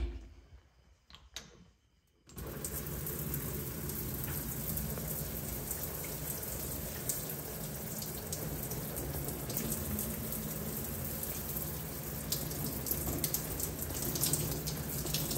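Shower running: a steady spray of water falling onto a hand and the tiled shower floor, starting abruptly about two seconds in.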